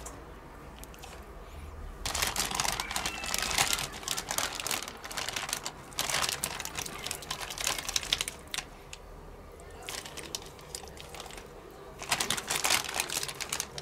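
Brandy-marinated pork neck steaks sizzling and crackling in a hot frying pan, in three spells: about two seconds in, about six seconds in, and again near the end.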